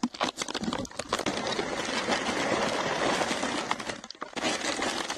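Bison eating feed pellets right at the microphone: a few crisp clicks of pellets at first, then a steady rough rushing noise of munching and breath that pauses briefly near the end.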